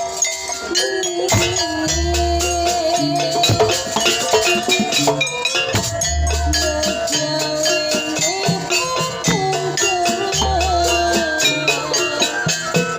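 Live traditional music for a dance: a wavering melody line over fast, steady percussion, with a deep low note sounding about every four seconds.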